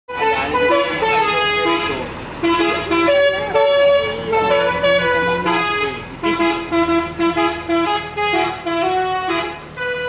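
Bus telolet horn: a multi-note musical air horn on a tour bus playing a quick melody of stepped notes, with short breaks about two seconds and six seconds in.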